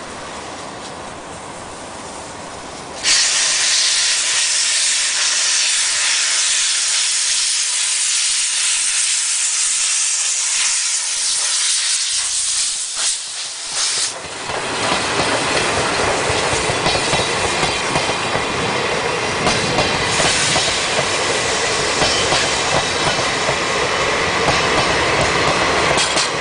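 Steam-hauled passenger train departing: about three seconds in a loud steam hiss starts suddenly and lasts about ten seconds, then gives way to the heavier rumble of the train pulling away, with locomotive and wheel noise.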